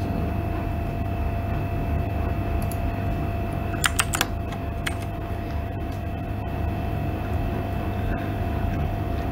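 Steady low electrical hum with a thin constant whine above it, broken by a quick run of four or five sharp clicks about four seconds in.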